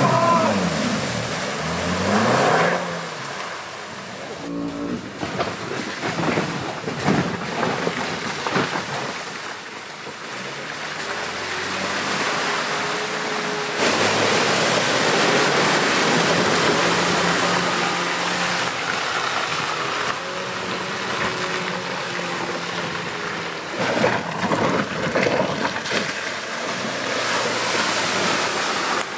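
Land Rover Defender 90 P300's turbocharged four-cylinder petrol engine revving, its note rising and falling near the start, as the 4x4 drives through a flooded, muddy trench with water splashing and surging around it. Later it runs at steadier, lower revs as the vehicle crawls over rutted woodland tracks, with knocks and scrapes from mud, stones and undergrowth.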